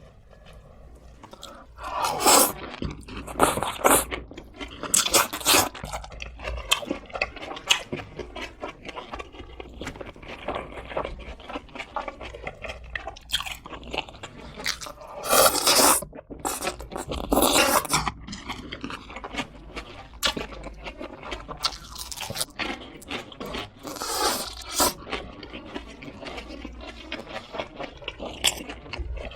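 Fried chicken being bitten and chewed up close: a loud crisp crunch every few seconds between quieter steady chewing.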